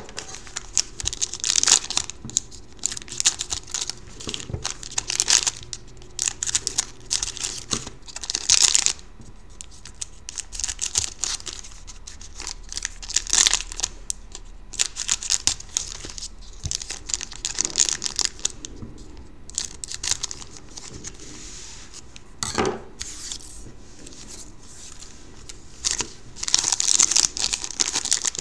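Foil wrappers of Panini NHL Certified hockey card packs crinkling in the hands and being torn and cut open, in repeated bursts of crackle.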